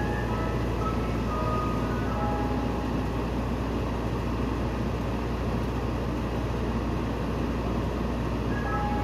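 A Mister Softee ice cream truck idling with a steady low hum, its chime jingle playing a tune for the first few seconds, falling away, and starting up again near the end.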